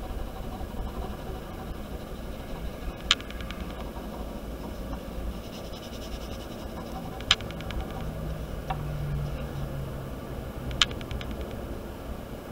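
Steady background hum and hiss. Three sharp clicks come about four seconds apart, each followed by a short, rapid rattle of ticks.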